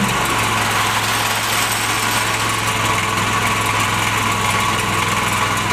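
Forklift engine running steadily with a constant low hum, holding the truck's rear end up.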